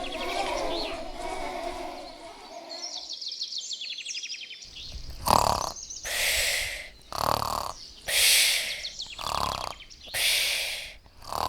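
Snoring imitated with the voice: noisy breaths in and out alternate about once a second, starting about five seconds in. Before that, a jumble of voices mixed with runs of rapid clicking.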